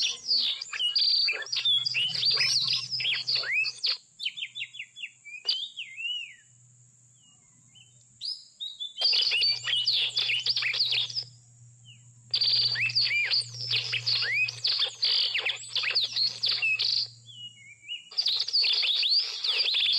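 Oriental magpie-robin (kacer) singing in bursts of rapid, varied chirps and whistles packed with mimicked phrases. It falls quieter for a few seconds about a quarter of the way in. A steady high insect drone runs underneath.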